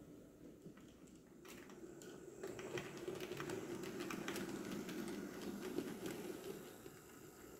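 H0e narrow-gauge model train, a small ÖBB diesel locomotive with empty stake wagons, rolling past on the track: a light rattle and clicking of wheels over the rails. It builds about two seconds in and fades near the end.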